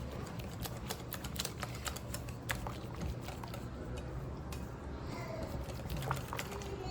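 Pancake batter being stirred in a bowl, the mixing utensil tapping the bowl in quick, irregular clicks.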